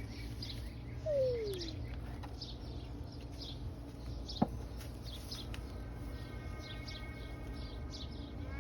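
Small bird chirping repeatedly at a high pitch, with a short falling tone about a second in and a single sharp knock about halfway through; a faint steady tone comes in near the end.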